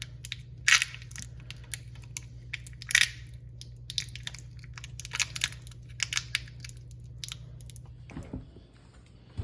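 Masking tape being unrolled and wrapped around a stack of pennies: irregular crackling and rustling, with louder crackles about a second in and about three seconds in, over a steady low hum.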